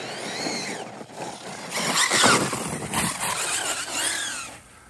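Brushless electric motor of an Arrma Kraton RC truck on a 6S LiPo whining up and down in pitch three times as the throttle is punched and released. The tyres are spinning in loose dirt.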